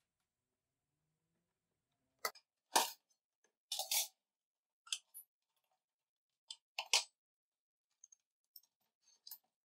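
A scattered series of short, sharp clicks and knocks, like hard objects being handled or set down. The loudest come about three seconds in and again about seven seconds in, followed by a few faint ticks near the end.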